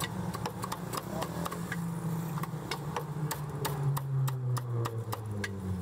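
Cleaver chopping crispy roast pork on a wooden chopping board: sharp knocks, about two to three a second, unevenly spaced. A low droning hum runs underneath, its pitch sagging and then rising near the end.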